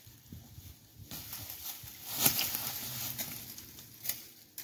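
Footsteps crunching and rustling through dry fallen leaves, with a sharper crackle about two seconds in and another near the end.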